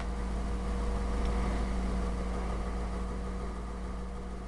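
Steady low mechanical hum with a faint hiss over it, easing off slightly near the end.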